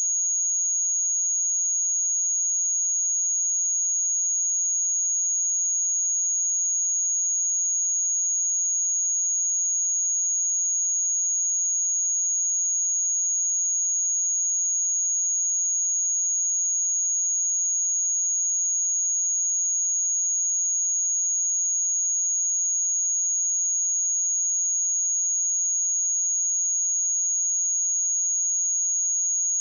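A pure 6657 Hz sine-wave test tone: one steady, high-pitched whistle-like tone held at an even level, with nothing else.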